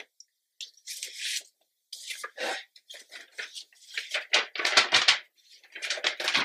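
Sheet of paper being handled, rustling and crinkling in a run of short bursts, the loudest about five seconds in.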